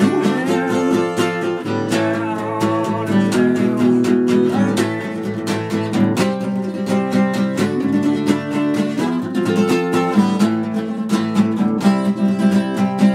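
Steel-string acoustic guitar played solo, a run of picked notes and chords ringing over one another.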